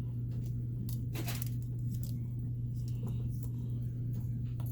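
Anderson Powerpole connector parts being handled and pushed together by hand: a few faint plastic clicks and rubbing sounds, over a steady low hum.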